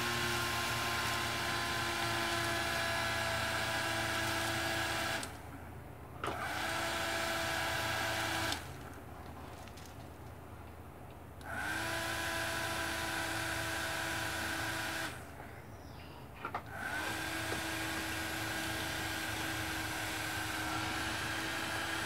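Small DC motor of a homemade table fan running with a steady whine, switched off and back on three times; at each restart the pitch rises briefly as the motor spins up.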